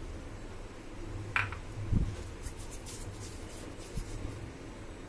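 Hands working soft dough into balls on a marble board: quiet rubbing and handling sounds with a few soft knocks, the last about four seconds in as a palm presses a dough ball against the board.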